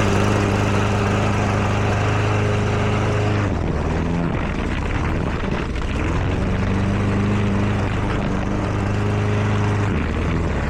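Petrol lawn mower engine running at a steady speed. Its pitch drops and wavers for a couple of seconds about three and a half seconds in, then picks back up, and dips briefly again near the end.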